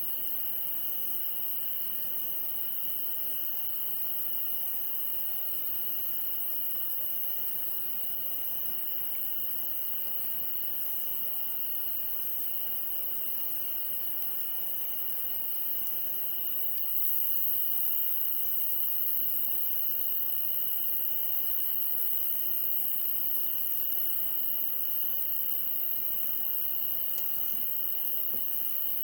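Night insects, crickets, calling continuously: a steady high ringing trill with a regular chirp repeating about once a second. A few faint clicks sound over a soft background hiss.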